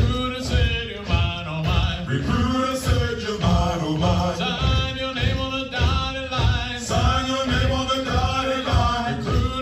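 Military marching cadence sung by male voices, with lines repeated call-and-response style over a steady beat.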